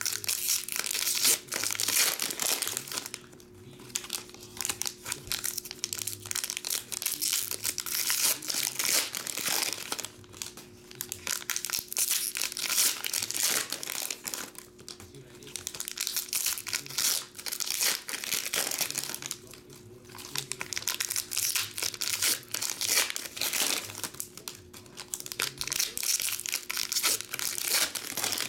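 Foil-lined hockey card pack wrappers being crinkled and torn open by hand, crackling in bursts with short pauses between packs.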